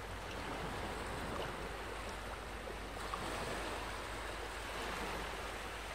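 Ocean waves washing, a steady soft hiss of surf.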